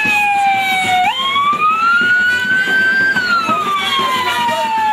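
A vehicle siren wailing slowly. Its pitch slides down, jumps up about a second in and climbs for two seconds, then falls away again.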